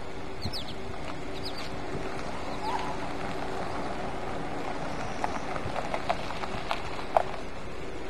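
Outdoor ambience: birds chirping over a steady hum and a hiss, with a few sharp light clicks in the second half, likely footsteps on the dirt road.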